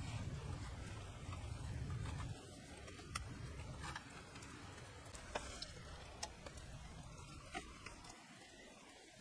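Light rain patter with scattered single drips ticking, over soft rubbing and rustling of rope being pulled tight and knotted around a log. A low rumbling noise in the first two seconds or so stops abruptly.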